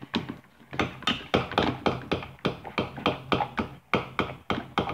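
Spoons tapping and clinking against a glass measuring cup and a plastic bowl while slime mixture is stirred, a quick run of taps at about four a second.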